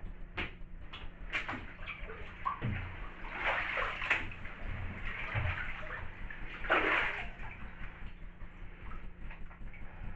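Bathwater sloshing and splashing as a person wades in a filled bathtub in leather work boots and jeans, stepping a boot up out of the water and back in, with the loudest splash about seven seconds in.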